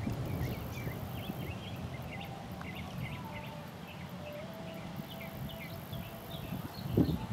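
Small birds chirping again and again over a low, steady rumble from the distant engines of a departing Boeing 737-800 as it climbs away.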